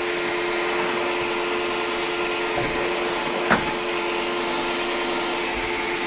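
An electric motor running steadily with rushing air and a steady hum, like a vacuum or blower, with a single sharp click about three and a half seconds in.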